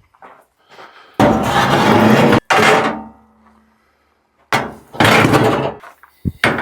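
Tools being gathered and loaded, clanging and clattering loudly in two bouts, the first with a short metallic ring dying away after it.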